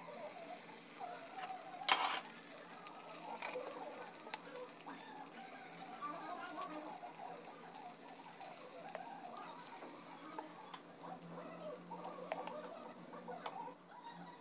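Appe batter sizzling and crackling faintly as it is spooned into the hot, ghee-greased cavities of an appe pan, with scattered light clicks of a spoon on the pan. There is a sharp click about two seconds in.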